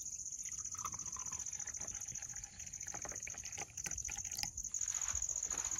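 A hot drink poured from a stainless-steel vacuum flask into a steel tumbler, the stream splashing and frothing as the cup fills. A steady high-pitched buzz runs behind it.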